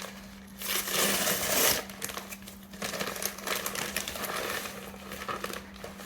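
Packaging being handled and unwrapped: a loud crinkling rush lasting about a second, starting just under a second in, then scattered rustles and small clicks, over a steady low hum.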